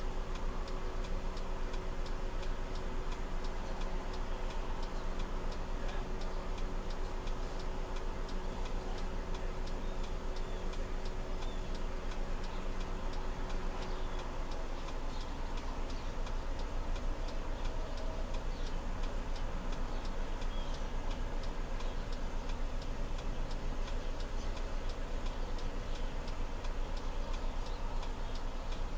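Steady, even ticking, about three clicks a second, over a low steady hum inside a parked car; a faint steady tone underneath fades out about halfway through.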